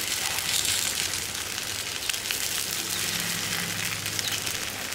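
Rice-flour uttapam batter sizzling steadily in a hot oiled frying pan over a low gas flame, with small crackles, over a steady low hum.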